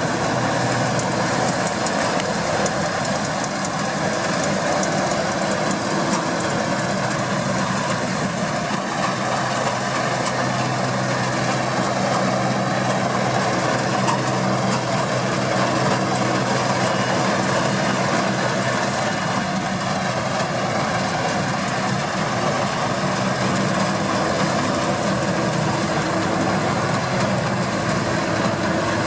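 Deutz-Fahr 6060 combine harvester running steadily, its diesel engine and machinery giving a constant drone with no change in pitch or level.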